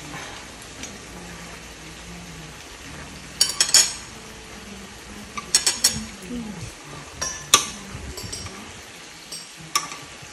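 Beef and vegetables sizzling steadily in a frying pan on a portable gas stove. Utensils click against the pan in a few short bursts as the food is turned, about three, five and a half, seven and a half and ten seconds in.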